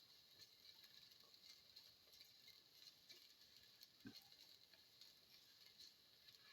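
Faint sizzling of oil in a frying pan, with small irregular crackles and one soft knock about four seconds in.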